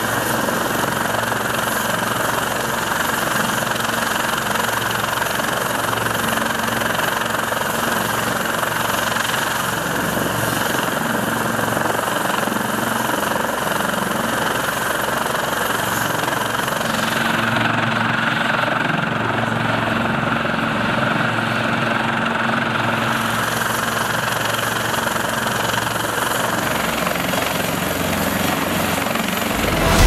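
Helicopter running on deck with its rotor turning: a steady rush of rotor and turbine noise with a constant low tone. The upper hiss thins out for a few seconds past the middle, then returns.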